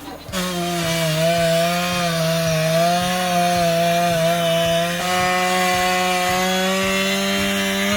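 Two-stroke chainsaw running at high, nearly steady speed while cutting through wood, with a brief dip about five seconds in.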